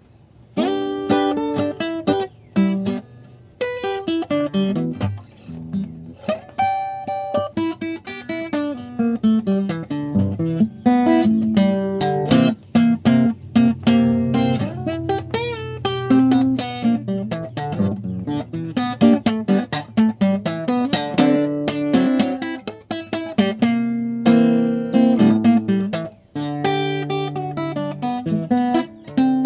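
Solo acoustic guitar, played with a steady run of picked notes over a bass line.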